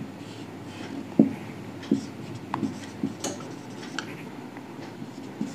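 Marker pen drawing on a whiteboard: short scattered strokes with brief squeaks and light taps.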